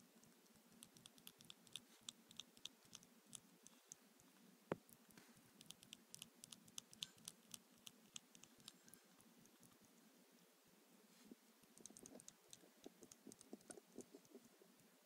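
Faint runs of quick, small clicks and ticks from a two-week-old hamster nibbling and scrabbling in a plastic food dish, with pauses between the runs and one sharper click about five seconds in.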